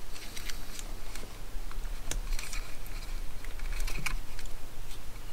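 Light clicks and handling of a 9-volt battery being fitted into its snap connector, with a sharper click about two seconds in and another about four seconds in.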